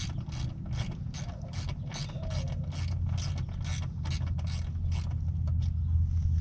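Small hand ratchet clicking in a steady rhythm, about two to three clicks a second, as the headlight mounting hardware is turned down; the clicking stops near the end. A low steady rumble runs underneath.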